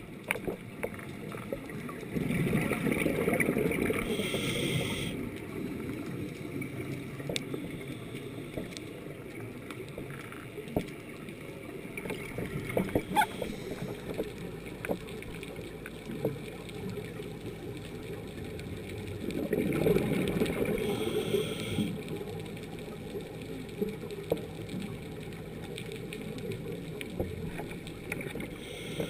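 Underwater sound of a scuba diver's breathing through the regulator: two long bubbling exhalations, one about two seconds in and another about twenty seconds in, over a steady hiss with scattered faint clicks.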